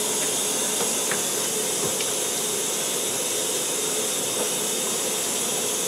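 Water running steadily from a bathtub tap, an even hiss with a couple of faint ticks.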